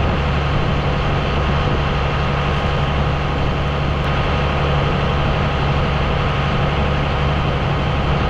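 Vehicle engine running steadily with a constant low hum.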